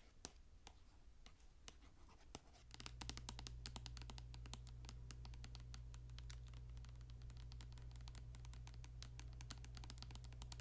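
Fingernails tapping and scratching on a plastic bottle of Soft Scrub cleanser: a few scattered ticks, then quick continuous tapping from about three seconds in. A low steady hum comes in at the same moment.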